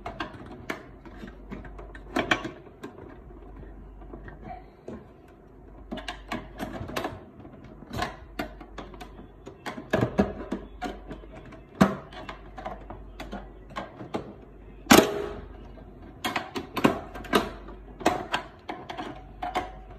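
Irregular clicks, taps and knocks of a laser printer's plastic and sheet-metal casing being handled and worked with a small tool, with a sharper knock about fifteen seconds in.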